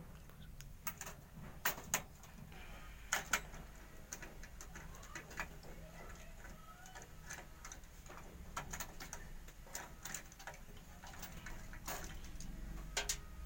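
Irregular small clicks and taps of desktop computer parts being handled and unclipped during disassembly, with a few sharper clicks in the first few seconds and another near the end.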